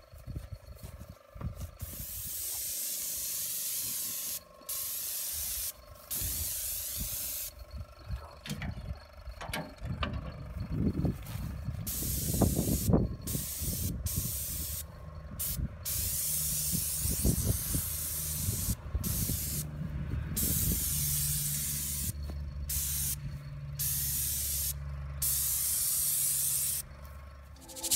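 Airless paint spray gun spraying black paint onto a metal wheelbarrow, a hiss that starts and stops over and over as the trigger is pulled and released. A low steady hum runs under the later bursts.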